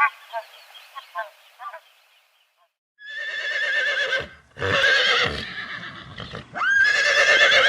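A horse neighing: three long whinnies with a quavering pitch, beginning about three seconds in, after a moment of quiet. At the very start, short bird calls fade out.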